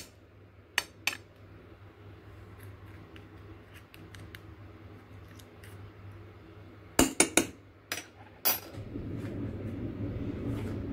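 Metal spoon clinking against the plate as garlic sauce is spooned over raw tiger prawns: a few sharp clinks, then a quick cluster of clinks about seven seconds in. A steady low hum starts near the end.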